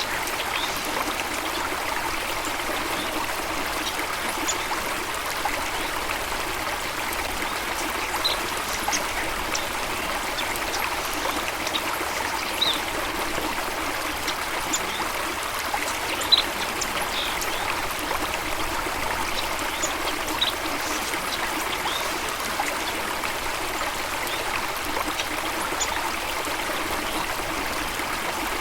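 Running water splashing and trickling steadily, with brief high-pitched ticks now and then.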